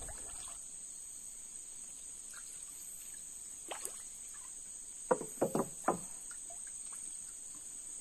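Steady high-pitched insect chorus in flooded rainforest. A single splash near four seconds in and a quick run of four or five small splashes and drips around five to six seconds in come from a canoe paddle and a gillnet being lifted out of the water.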